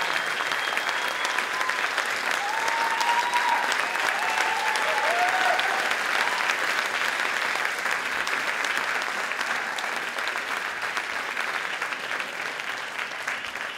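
Theatre audience applauding, dense clapping with a few cheers in the first half. The applause dies away near the end.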